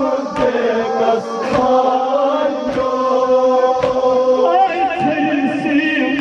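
Male voices chanting a Kashmiri noha, a Shia lament, with sharp chest-beating (matam) strikes about once a second. Near the end the melody turns into a wavering, trilled line.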